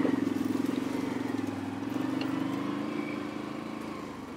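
Quad bike engine running while riding, a steady note that rises a little in pitch about two seconds in and eases back near the end.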